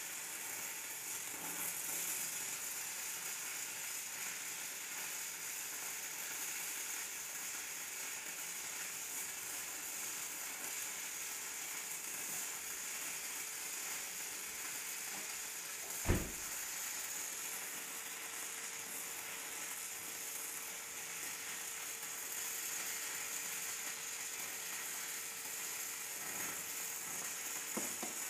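Stick-welding arc of a 3/32-inch 6010 electrode running at 80 A DCEP from a Miller Dynasty, crackling and sizzling steadily through one long bead on mild steel plate. There is one sharp pop a little past halfway through.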